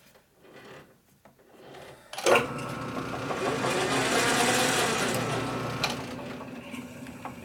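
Metal lathe started about two seconds in with a clunk, its spindle and gearing running with a steady whine and hum for a few seconds, then switched off and winding down. Faint clicks of the chuck being handled before it starts.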